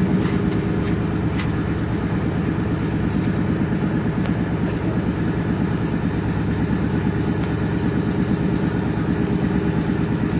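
Canal narrowboat's diesel engine running steadily, a fast, even beat.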